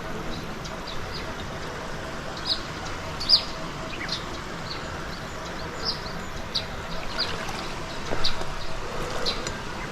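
Scattered short, high bird chirps over a steady wash of running water.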